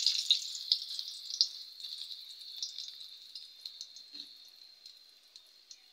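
Onion pieces sizzling in hot oil in a steel kadai, a steady hiss with scattered small pops. Loudest at first, then dying down gradually.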